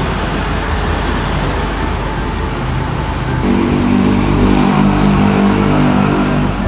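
Steady road traffic noise, with a motor vehicle engine running close by and getting louder from about three and a half seconds in.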